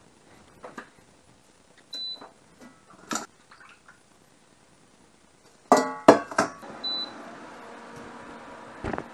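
Metal pots and utensils clank loudly against each other and the cooktop. Short high beeps come from an induction cooktop's controls about two seconds in and again about seven seconds in. After the second beep a steady hum with several held pitches starts as the hob begins heating a pot of frying oil.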